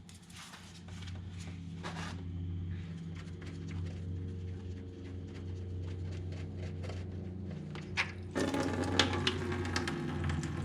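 Radiator drain plug on a BMW N52 cooling system being worked loose, with faint scrapes and small clicks over a steady low hum. About eight seconds in, a louder continuous hissing splash with clicks sets in: coolant starting to drain out of the radiator.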